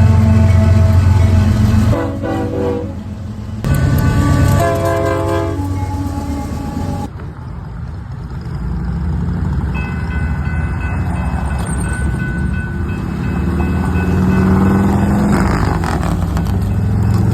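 Locomotive air horn blowing loud blasts over the low rumble of the train for about the first seven seconds. After an abrupt change, a steadier train rumble follows, with faint steady high tones.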